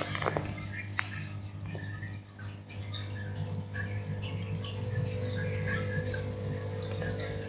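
Aquarium pump humming steadily while water trickles and drips, with one sharp click about a second in.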